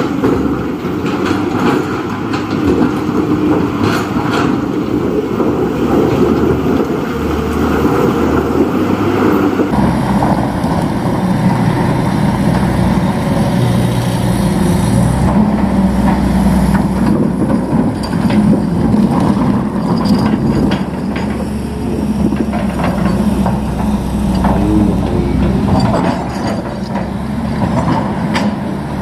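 Heavy diesel construction machinery running and working, a steady loud engine rumble with some clanking. The sound changes abruptly about ten seconds in.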